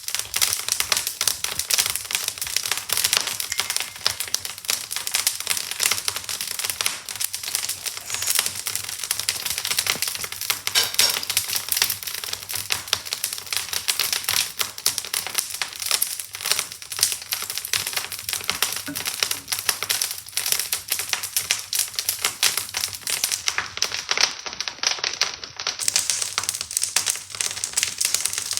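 Wood fire in a fireplace crackling with dense, irregular snaps, burning briskly on freshly added logs.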